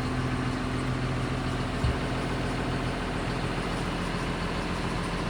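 Farm machinery engine running steadily with a low drone, and one brief low thump about two seconds in.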